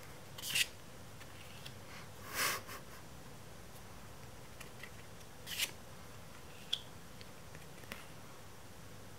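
Pokémon trading cards slid one past another in the hand, three short swishes as cards are moved from the front of the stack to the back, with a few light taps of card edges.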